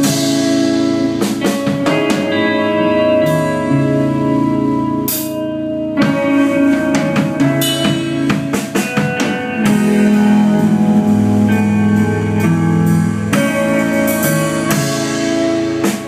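Post-rock band playing live: electric guitar notes ringing on over bass guitar, with frequent drum and cymbal hits from the drum kit.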